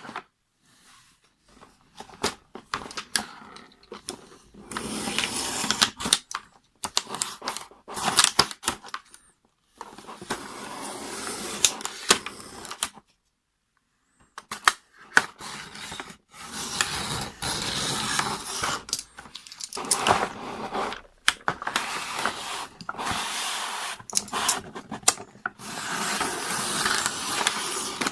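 Toy packaging being opened and handled by hand: stretches of rustling and scraping of plastic and cardboard, dotted with many sharp clicks and taps, with a brief lull about halfway through.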